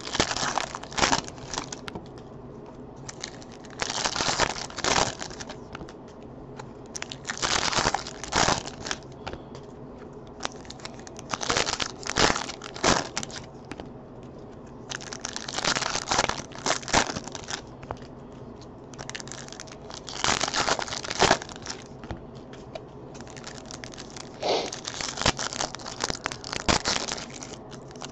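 Foil wrappers of Topps Chrome trading-card packs crinkling and tearing as the packs are ripped open one after another, in bursts every few seconds.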